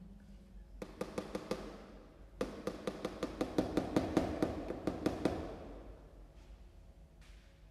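Quick runs of taps from a utensil striking a kitchen vessel: a short run about a second in, then a longer even run of about five or six taps a second lasting some three seconds.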